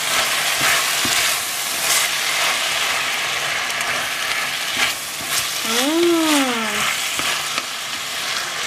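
Meat-and-vegetable stir-fry sizzling in a frying pan, in sauce just thinned with boiling water, while a wooden spatula stirs and scrapes through it.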